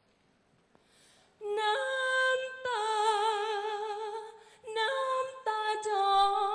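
A young woman singing unaccompanied into a microphone. The voice comes in about a second and a half in after a near-silent pause and holds long notes with vibrato, breaking briefly before the middle of the phrase and then going on.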